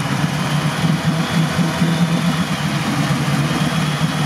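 Off-road 4x4's engine running at low, steady revs: a steady low hum with no revving.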